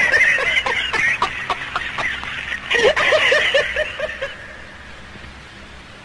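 People laughing heartily in two bouts of quick repeated ha-ha sounds, the second starting about three seconds in. The laughter dies away after about four seconds.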